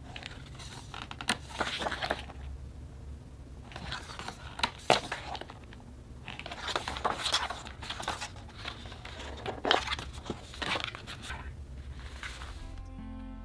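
Packaging being handled: spells of rustling and crinkling with sharp clicks, each a second or two long. Soft guitar music comes in near the end.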